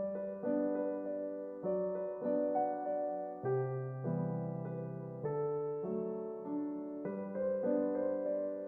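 Background music: soft piano playing slow sustained chords, about one new chord a second.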